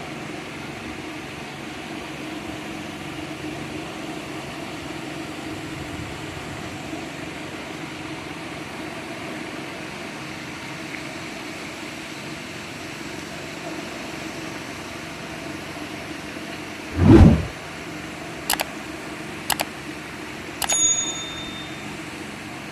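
Engine running at a steady hum. About three-quarters of the way through there is one loud low thump, then a few sharp clicks and a short high metallic ring near the end.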